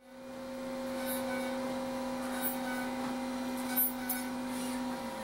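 A steady low hum fading in at the start, with a few faint, brief high ticks; its lowest tone stops near the end.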